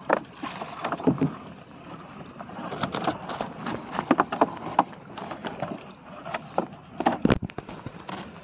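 Water splashing and lapping against a small boat's hull, with irregular knocks and rustles as a fishing net and its float line are paid out over the side. One sharp knock about seven seconds in is the loudest sound.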